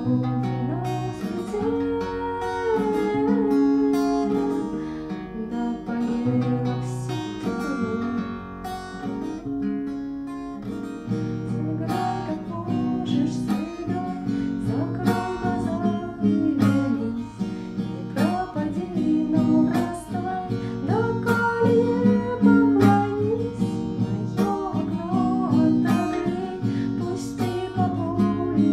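Acoustic guitar strummed steadily, playing a song accompaniment with a melody line gliding over it.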